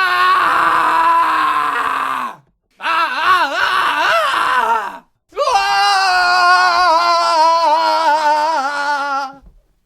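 A person's voice groaning and wailing in three long, drawn-out cries with brief breaks between them: the first sliding down at its end, the second wavering up and down, the third the longest and held before it fades out near the end.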